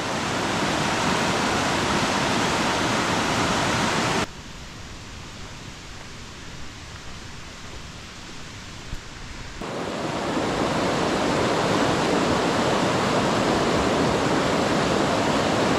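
Glacial mountain river rushing over rocks in white-water rapids, a steady loud rush of water. About four seconds in it cuts to a much quieter steady hiss, and it swells back to the full rush of the rapids around ten seconds in.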